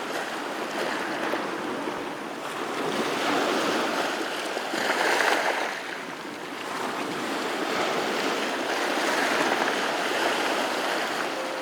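Sea waves washing in, a surf noise that swells and ebbs slowly, loudest about five seconds in and again near the end.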